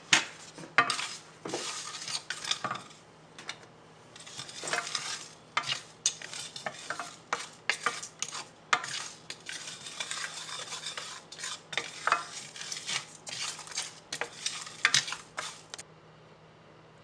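Spatula stirring and scraping whole spices (coriander, cumin, cloves, cardamom, cinnamon, poppy seeds, coconut) as they dry-roast in a pan, in quick irregular strokes that stop about a second before the end.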